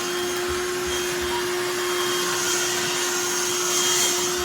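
Black+Decker Dustbuster cordless handheld vacuum running steadily: a constant motor hum under a rushing hiss of suction that swells twice as it is moved.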